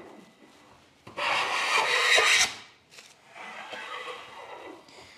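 Amazon Basics hand plane shaving along the edge of a black spruce board: one loud rasping stroke starting about a second in and lasting about a second and a half, then a second, quieter stroke.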